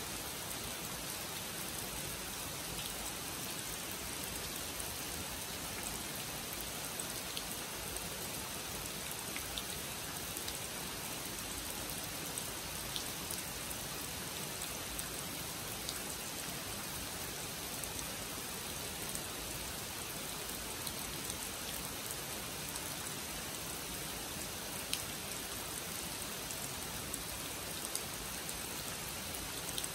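Steady rain falling on a pond and the surrounding trees, with scattered sharp ticks of nearby drops.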